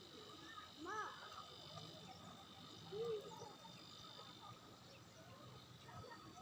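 Faint ambience of insects: a steady high drone. Two short calls rise and fall in pitch, about one second and three seconds in.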